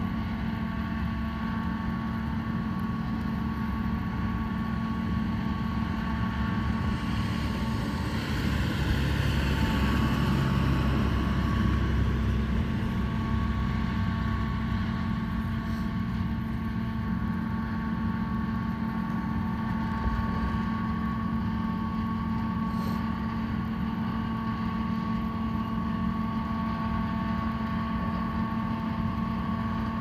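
A steady mechanical hum with constant tones, over a low street-traffic rumble; a vehicle passes about eight to twelve seconds in.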